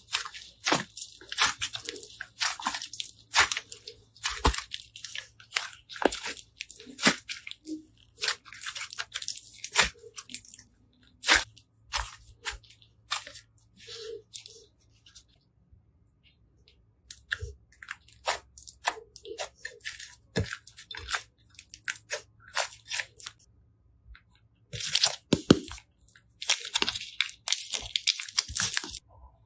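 Slime squeezed, folded and stretched by hand, giving off irregular sticky crackles and pops, with a short lull partway through and a dense run of crackling near the end.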